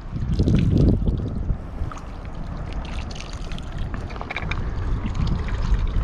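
Wind buffeting the microphone in an uneven, gusting low rumble, strongest in the first second, with scattered faint clicks.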